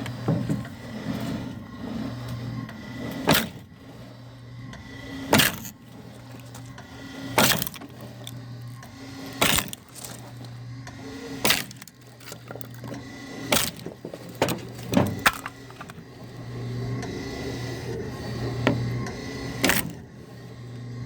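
Homemade log splitter driven by a small 0.5 hp electric motor through a 60:1 reduction gearbox, running with a steady low hum. A sharp knock sounds about every two seconds as the machine cycles.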